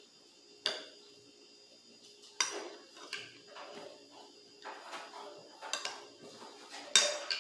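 A metal fork clinking and scraping against a glass plate as food is scooped up: a handful of sharp, ringing clinks, the loudest near the end, with softer scraping and chewing between them.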